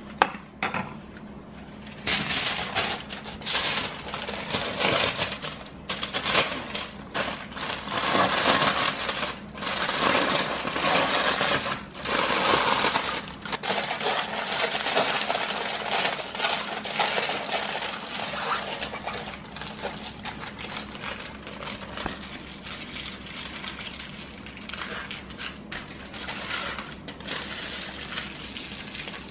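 Aluminium foil being crumpled and folded tight around a whole fish: irregular crinkling and crackling, busiest in the first half and lighter toward the end.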